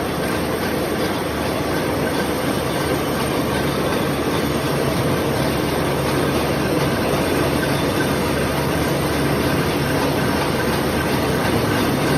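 Milling machine running with its cutter cutting the teeth of a ratchet wheel: a loud, even machine noise with a low hum and a faint high whine.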